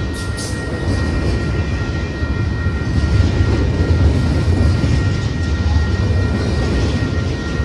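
Double-stack intermodal freight train rolling past: a loud, steady rumble of steel wheels on rail, with two faint steady high tones ringing above it.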